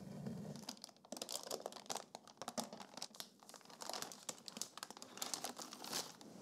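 Baking parchment crinkling and crackling as it is peeled off the underside of a baked sponge sheet. The run of papery crackles starts about a second in and keeps going until just before the end.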